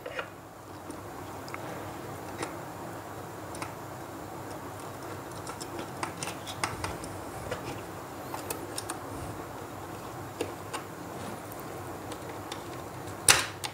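Faint scattered clicks and taps of a screwdriver and wire on a plastic two-way switch's terminal screws, over a steady low background hum, with a louder clatter near the end.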